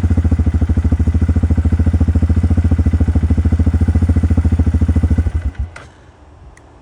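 An engine idling with a steady, rapid throb, shut off about five seconds in.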